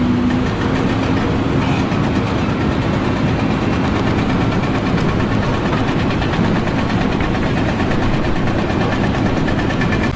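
A large engine running steadily and loudly, with no change in speed.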